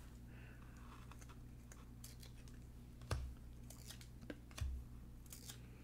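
Trading cards being thumbed through by hand: faint ticks of card edges sliding past each other, with two slightly louder clicks about three and four and a half seconds in, over a low steady hum.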